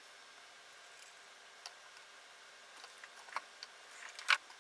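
Light, faint ticks and taps from hands handling a wire and soldering iron against a circuit board while the wire is soldered to a pin: a handful of scattered clicks, the sharpest one near the end.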